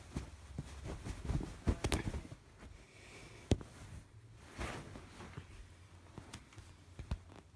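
Scattered sharp clicks and short bursts of rustling from a kitten clambering over fabric, with the phone being handled close to the microphone.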